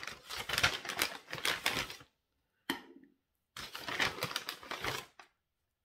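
Paper and packaging rustling and crinkling as items are handled and unwrapped. It comes in two longer bursts of crackle with a short crackle between them.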